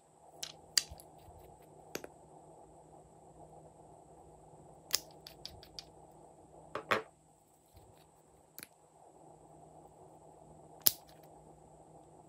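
Short sharp clicks and taps from small nail polish bottles being handled, a few seconds apart with a quick run of ticks about five seconds in, over a faint steady hum.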